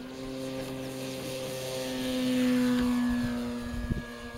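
Pilatus PC-21 RC model's Scorpion S4035-250 brushless electric motor turning an APC 17x12 propeller through the takeoff run and lift-off: a steady propeller hum that grows louder as the model passes close, loudest about halfway, then eases as it climbs away. A short knock near the end.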